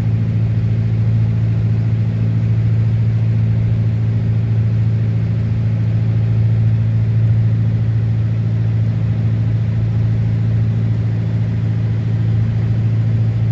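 Engine of a small river sightseeing boat running steadily: an even, unchanging low drone.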